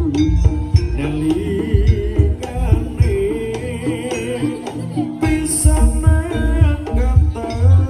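Live jaranan ensemble music: heavy, irregular drum strokes under a wavering melodic line, with singing.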